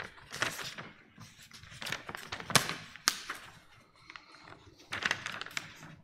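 Writing on a board: irregular sharp taps and short scratchy strokes, the loudest tap about two and a half seconds in.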